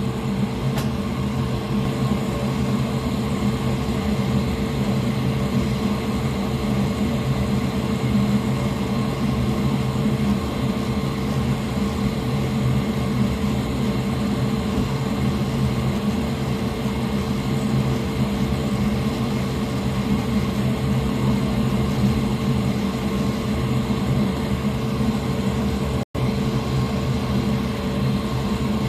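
Steady mechanical drone of a running fan, with a low electrical hum. It cuts out for an instant near the end.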